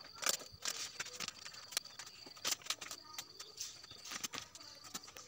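Cellophane bouquet wrapping paper crinkling and rustling as it is handled, in scattered small crackles.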